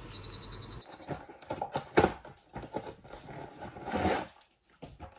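Rustling and knocking of a ring-light tripod's cardboard box being handled, with a sharp knock about two seconds in and another burst of handling near the end. Before that comes a brief steady low hum.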